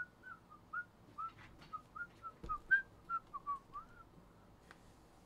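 A person whistling a tune in short, quick notes, with a few light knocks from boxes being handled.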